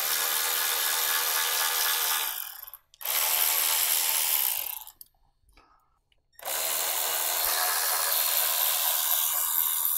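A handheld power driver running in three bursts, spinning out fasteners to free the fuel rail. The first two bursts last about two seconds each; the third starts about six and a half seconds in and is still running at the end.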